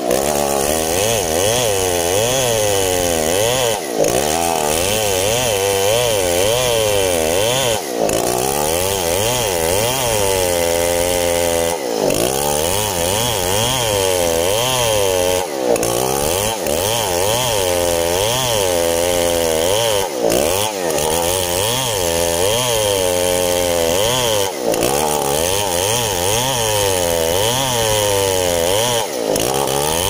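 STIHL 070 two-stroke chainsaw at full throttle, ripping lengthwise along a coconut log. Its engine pitch wavers up and down continuously as the chain loads and frees in the cut, with a brief dip every few seconds.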